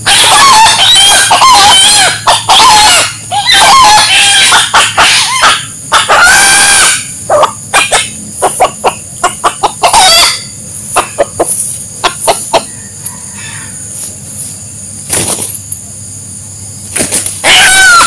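Rooster calling loudly over and over for the first several seconds, then a run of short clucks, and another loud call near the end.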